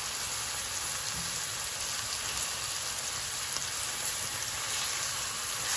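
Sliced onions frying in hot oil in a wok: a steady sizzle.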